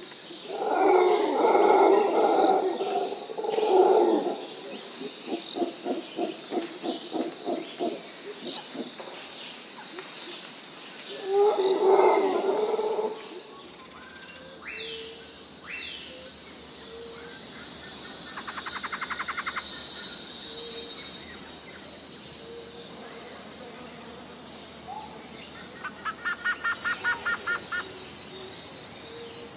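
Loud animal calls in the first half, one a long run of quick pulses. After that, birds chirping and giving short rapid trills over a high insect hiss.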